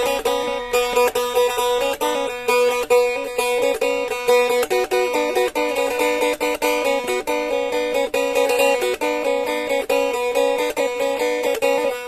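Blaan faglung, a two-string wooden boat lute, played solo: a quick, continuous run of plucked notes over a steady drone.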